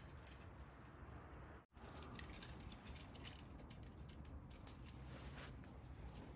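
Faint rustling of towels and light clicks of plastic clothespins as laundry is hung on a pin hanger. A few quick clicks, busiest about two to three seconds in, after a momentary silent gap.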